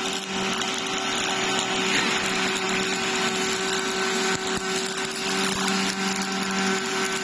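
Robotic wire-feed (MIG/MAG) welding arc running on a steel box beam: a steady crackling hiss, with a steady hum underneath.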